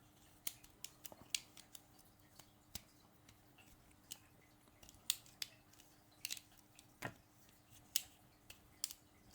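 Faint, irregular sharp metal clicks and snaps from a Leatherman Wave Plus multitool being handled, its freshly oiled tools worked open and shut.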